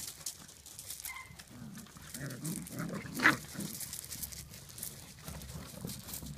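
Welsh Springer Doodle puppies play-fighting, with short yips, squeaks and little growls. The loudest is a sharp yelp a little over three seconds in.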